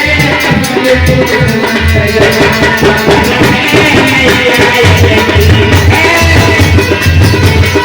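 Instrumental music from a Bhim geet song, without vocals, with a fast, steady percussion beat and a repeating deep bass pulse.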